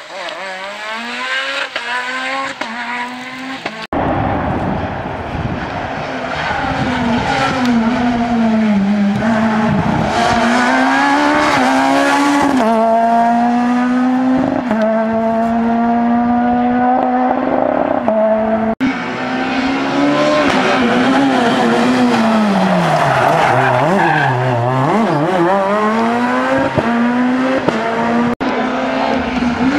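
Peugeot 207 S2000 rally cars' naturally aspirated 2.0-litre four-cylinder engines revving hard at full rally pace, the engine note climbing and dropping with throttle and gear changes and held at high revs for a few seconds in the middle. Three abrupt cuts switch from one car's pass to the next.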